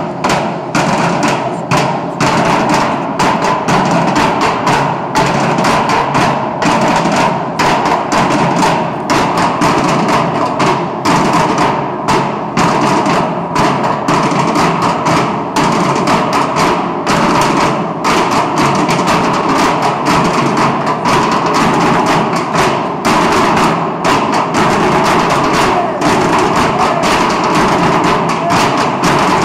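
A drumming ensemble beating steel oil drums with wooden sticks, playing a fast, steady rhythm of strikes without a break.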